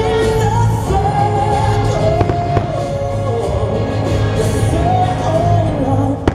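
Fireworks show soundtrack music over loudspeakers, a held melody over a steady low bass, with fireworks bursting: a couple of cracks about two seconds in and a sharp bang at the very end.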